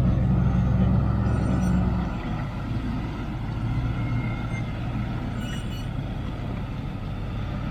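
A four-wheel-drive vehicle's engine running close by, loud for about the first two seconds and then easing back to a lower, steady note.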